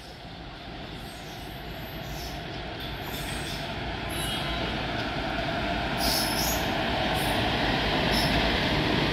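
Electric locomotive hauling a passenger express train, approaching and passing: the rumble of the locomotive and coaches on the rails grows steadily louder, with a few brief high squeaks about six seconds in.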